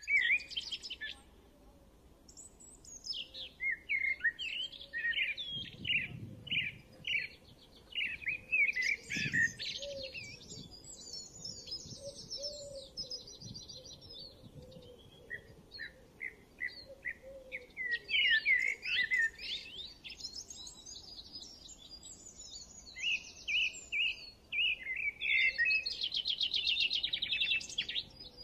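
Small birds chirping and singing: runs of quick chirps and rapid trills that come and go.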